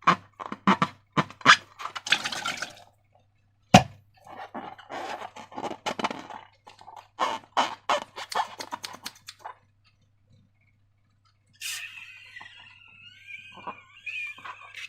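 Slime being squished and stretched by hand, giving quick wet sticky clicks and pops. One sharp, loud snap comes about four seconds in. Near the end a wavering squeak sounds, like rubbing on rubber.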